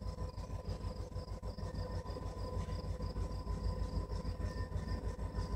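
Distant diesel freight locomotive approaching, a steady low rumble with a faint steady whine over it. Insects chirp high above in a quick repeating pulse, about three a second.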